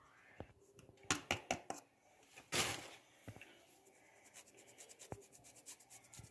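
Flour being sifted through a hand sieve: a handful of sharp taps, a brief scraping rustle, then a quick run of light ticks.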